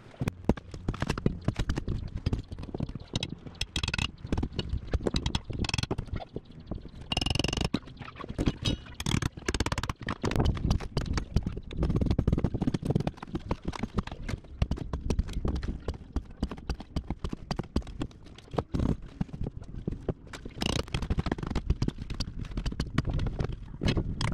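Long pry bar and hammer knocking and prying rotted marine plywood out of a fiberglass boat transom: a steady run of many knocks and scrapes as the wood is broken loose and delaminated from the fiberglass skin.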